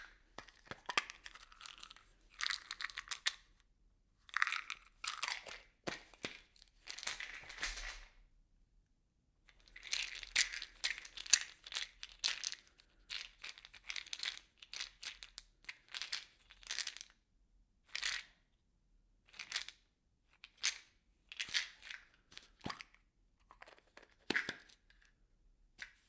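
Small objects rattling and clattering inside a plastic bottle as it is shaken in irregular bursts with short pauses between, one longer run of shaking near the middle.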